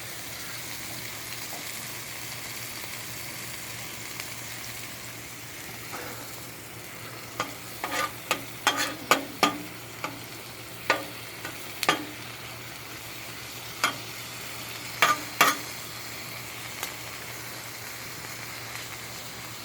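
Food sizzling steadily on a gas griddle. From about seven seconds in to about sixteen seconds, a run of sharp clinks and scrapes from a spatula working the food on the griddle.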